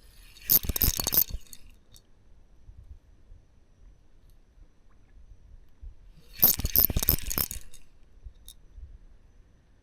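Fishing reel cranked in two short, fast bursts of metallic clicking, about six seconds apart, as a metal lure is jigged.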